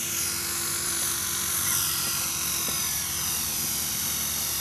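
Art Tech Falcon 3D electric RC helicopter flying, its brushless outrunner motor and rotor giving a steady high whine that slowly falls in pitch.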